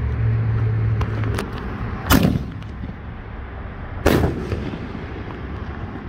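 A 5-inch canister firework shell fired from its mortar tube: a sharp bang of the lift charge about two seconds in, then a second boom as the shell bursts overhead about two seconds later.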